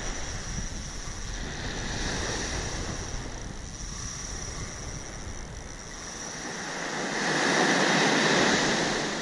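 Surf breaking on the beach, with wind rumbling on the microphone; a wave crashes loudest near the end.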